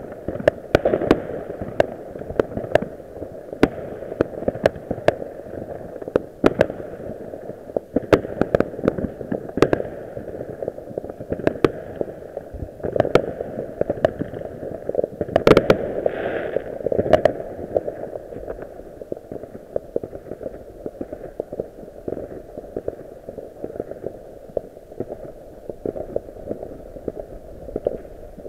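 New Year's fireworks going off all around, with sharp bangs and pops at irregular intervals, several a second at times, over a steady low rumble of many more explosions.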